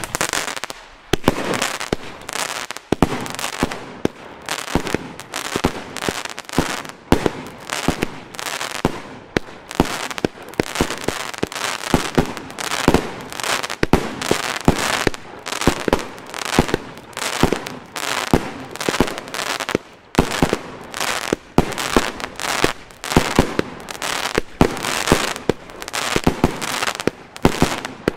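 El Gato Terremoto 36s fireworks cake, a 50-shot battery of 20 mm tubes, firing shot after shot. Sharp salute bangs follow one another, roughly one to two a second, each trailing off in a short rush of noise.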